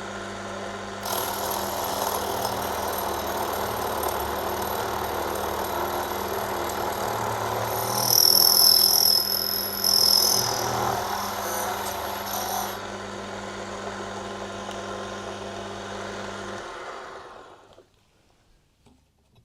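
Small metal lathe running with a steady hum while the tool cuts a thin brass disc. The cutting noise rises with a loud high squeal for a few seconds around the middle, stops, and the lathe then switches off and spins down to quiet near the end.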